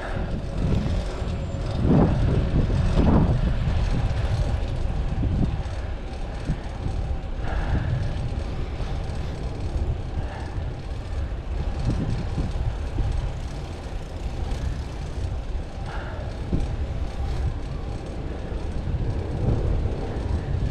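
Street traffic noise: a steady low rumble of passing vehicles, with a few short louder swells.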